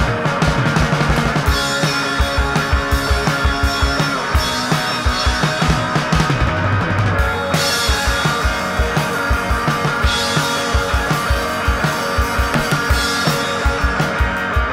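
Background music with a steady drum beat over held chords.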